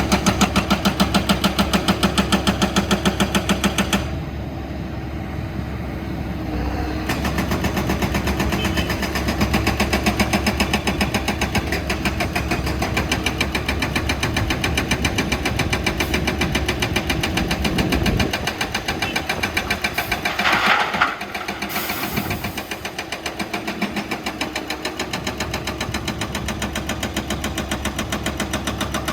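Excavator diesel engines running with a steady, even pulsing beat, easing off for a few seconds near the start. There is a short burst of noise about twenty seconds in.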